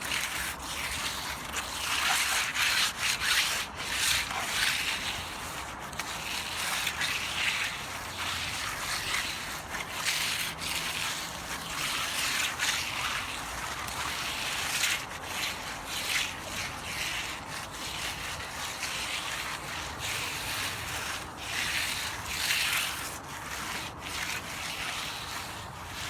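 Hand floats scraping back and forth over wet concrete in repeated strokes, roughly one a second. The floats are rough-floating a freshly poured slab, pressing the stone aggregate down to leave a smooth surface.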